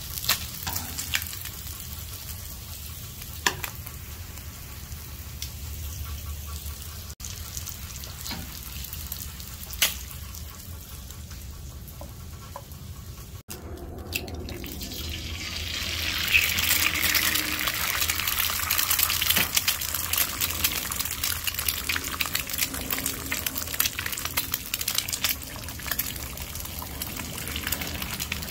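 Food frying on a hot flat-top griddle. In the first half bacon and sausage patties sizzle softly under a few sharp clicks of metal tongs. About halfway in, eggs cracked onto the oiled griddle set off a louder crackling sizzle that keeps on.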